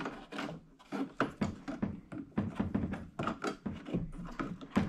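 Irregular light clicks, knocks and rattles of a band saw blade being worked around the rubber-tired wheels and into the guide bearings of a Hercules portable band saw.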